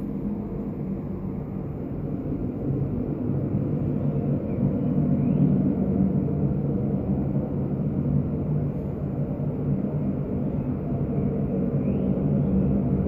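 A steady low rumbling drone with a constant hum, swelling slightly a few seconds in, with a few faint short rising sounds above it.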